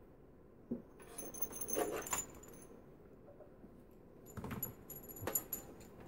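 Metal coax connectors clinking and rattling as they are handled and fitted to a Bird 43 wattmeter's coax sockets. It comes in two bouts, about a second in and again near the end.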